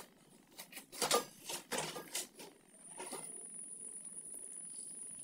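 Nursing kittens making short, irregular wet smacking and sucking sounds over the first few seconds. About three seconds in, a steady thin high-pitched tone begins and holds.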